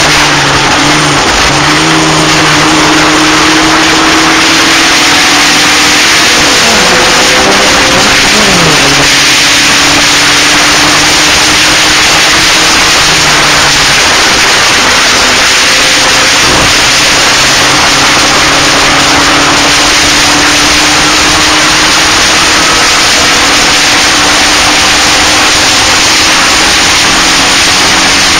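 Onboard sound of a Locost racing car at speed: its engine running hard under a loud rushing wind noise on the camera microphone. The engine note drops sharply around seven to nine seconds in, then climbs steadily again.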